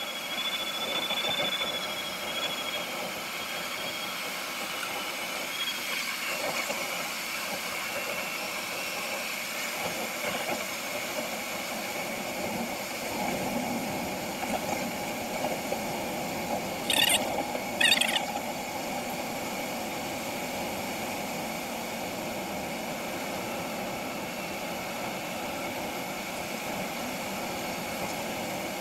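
Steady rush of airflow around a glider's cockpit canopy in flight. A high thin tone sounds over it and fades out within the first few seconds, and two short high chirps come about a second apart past the middle.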